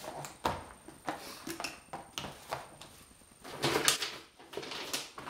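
Food packaging being handled: a few short knocks as a cardboard box is set down on a wooden table, then cardboard rustling and scraping as hands rummage in a shipping box. The rustling is loudest about four seconds in.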